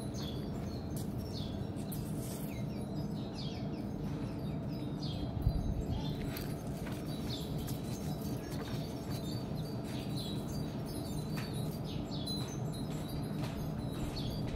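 Small birds chirping: many short, quick falling chirps, scattered throughout, over a steady low background hum, with one brief thump about five and a half seconds in.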